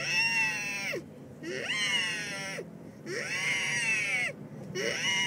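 A young boy's voice imitating a tornado siren: wail after wail, each sliding up in pitch, held for about a second, then falling away, about one every one and a half seconds.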